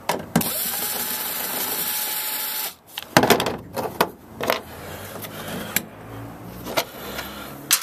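Cordless drill running steadily for about two seconds, then stopping abruptly, while taking out the screws that hold a plastic pickup bed liner. After it, a run of sharp clicks and knocks.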